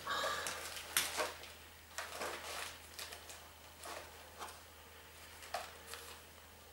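Rummaging through a box of cables and small odds and ends: a string of light knocks, clicks and rustles as items are picked up and dropped, busiest in the first couple of seconds and thinning out.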